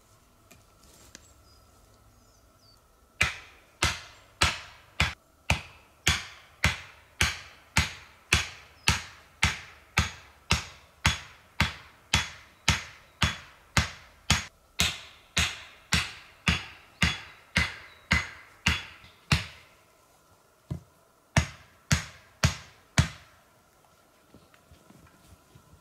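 An axe hammering the top of a wooden stake, driving it into the ground: sharp, ringing knocks at a steady pace of about two a second for some sixteen seconds, then after a short pause a handful more blows.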